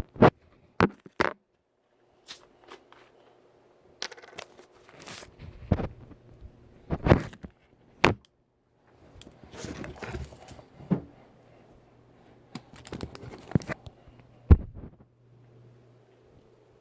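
Handling noises: a string of sharp clicks and knocks with crinkling and rustling between them, over a faint steady hum.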